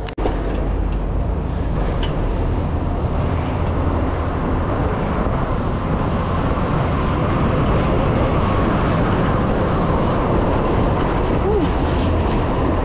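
Steady rumble of wind buffeting the camera microphone, mixed with tyres rolling on pavement, as a bicycle is ridden along at speed. It starts abruptly just after the beginning.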